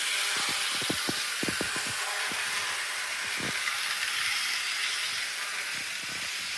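HO-scale Athearn Blue Box GP60 model locomotive running on sectional track: a steady hiss with light, irregular clicks, most of them in the first two seconds and one more about halfway through.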